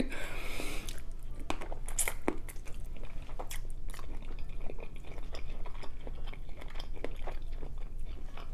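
Close-miked chewing of seafood boil: irregular, small wet mouth clicks and soft crunches as someone eats.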